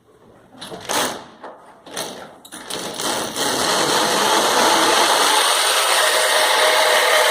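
A few short bursts, then from about three seconds in an electric drill runs steadily, boring a hole through ceramic wall tile.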